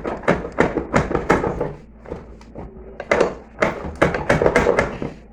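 Rapid blows struck on the Consul Facilite washing machine's heated bearing and shaft assembly to knock the seized part loose. A quick run of strikes, a lull around two seconds in, then another quick run.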